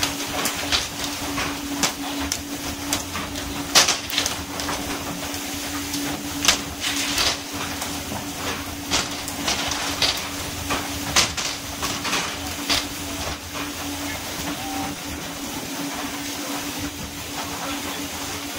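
Steady hiss of water spray along the hull of a pole-and-line tuna boat over a steady engine hum, with sharp slaps and knocks at irregular intervals as tuna are swung aboard and hit the deck, most of them in the first two-thirds.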